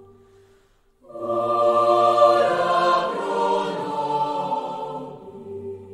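Choir singing a slow sacred chant in long held notes. One phrase dies away, and after a brief pause a loud new phrase begins about a second in, then gradually fades.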